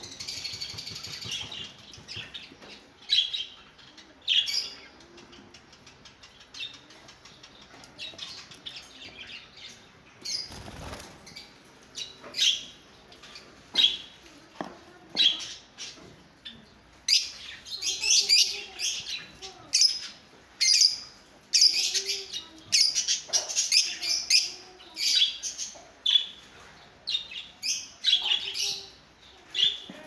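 Lovebirds calling: repeated short, shrill chirps, scattered at first and coming thick and fast in the second half.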